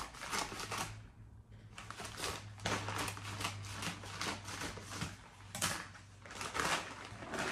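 Scissors cutting across the top of a paper padded mailer, then the stiff paper rustling and crinkling in irregular crackles as it is pulled open.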